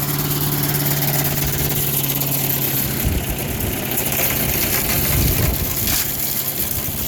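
Craftsman 4 HP chipper/shredder's small engine running steadily. About three seconds in, rotten sticks are shredded: irregular rattling and knocking for about three seconds, with the engine note unsteady under the load, before it settles back to a steady run.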